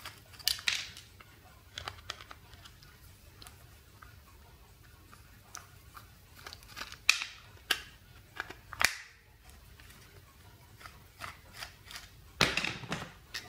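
Small screwdriver working the tiny screws out of a plastic multimeter's circuit board: scattered faint clicks and scrapes of the metal tip on the screw heads, with a cluster of sharper clicks near the end.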